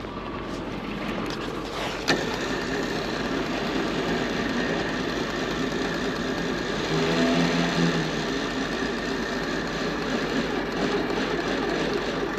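Tow truck engine running steadily, with a sharp click about two seconds in and a brief hum of several pitched tones over it about seven seconds in.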